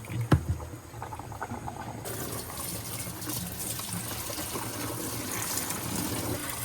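A sharp knock, then running water; from about two seconds in the water runs louder as a steady hiss, and it cuts off suddenly at the end.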